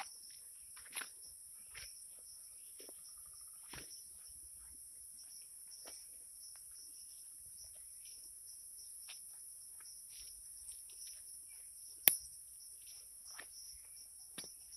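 Insects chirring steadily and high-pitched, with scattered soft footsteps and small knocks from walking along the garden beds, and one sharp click about twelve seconds in.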